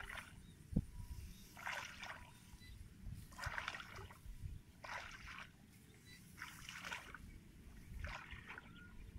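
Wading steps through shallow water among rice plants: a swishing splash about every second and a half. A single short low thump about a second in.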